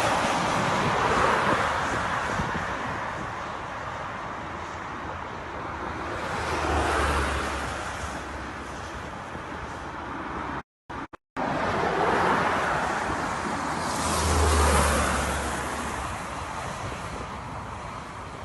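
Outdoor wind and road-traffic noise: a steady roar that swells and fades as vehicles pass, with a low rumble on two of the swells. The sound cuts out briefly twice a little past the middle.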